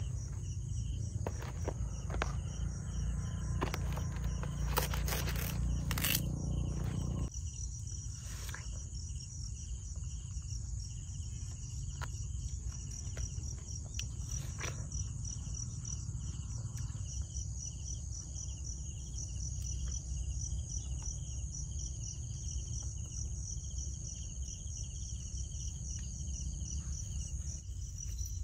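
Insects trilling steadily, a continuous high pulsing buzz with a second, lower pulsing chirp beneath it, over a low outdoor rumble. Scattered clicks and knocks sound in the first seven seconds, then stop.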